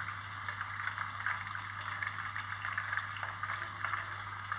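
Whole chicken deep-frying in a pot of hot oil: a dense, steady sizzle full of tiny crackles and pops as the water in the skin spits off. The crackling is the sign that the skin has turned crisp.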